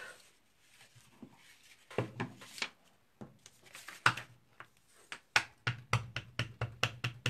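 Rubber stamp on a clear acrylic block handled on a craft table: a few separate knocks and paper handling, then near the end a quick, even run of light taps, about six a second, as the stamp is tapped onto an ink pad to ink it.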